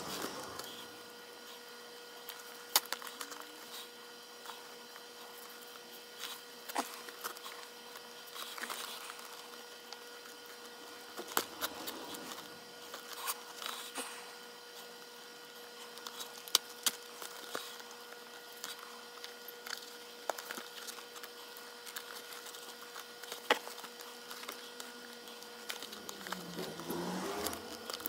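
Leather lace being pulled through the lace holes of a Wilson A2K baseball glove with a metal lacing needle: scattered sharp clicks and short rubbing, swishing pulls of leather on leather, over a faint steady hum.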